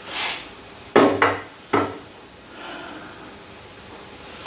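Three sharp metal knocks and clunks of an adjustable wrench and parts being handled on a metal shaper under repair, about a second in, after a brief rustle.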